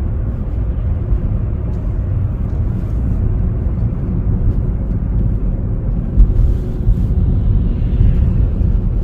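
Steady low road and engine rumble of a moving car heard from inside the cabin, with a single brief bump about six seconds in.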